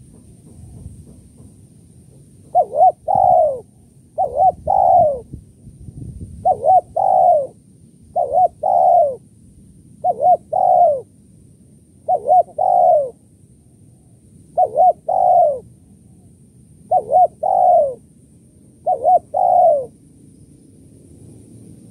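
Spotted dove cooing: nine phrases at about two-second intervals, starting a couple of seconds in, each two short quick notes followed by a longer falling coo.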